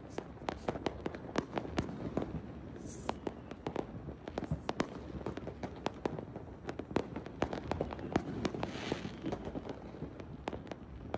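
Many fireworks going off all around at once: a dense, irregular string of sharp pops and bangs over a constant low rumble of further explosions.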